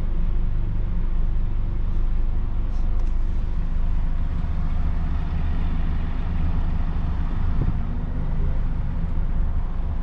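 Scania Fencer F1 bus engine idling steadily, heard from inside the driver's cab as a low, even hum.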